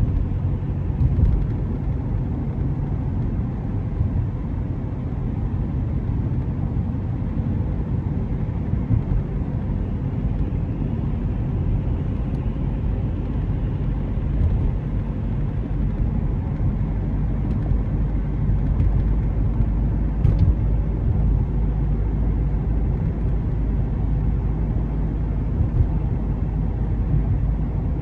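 Car driving along a road: a steady low rumble of engine and road noise, with a few faint clicks.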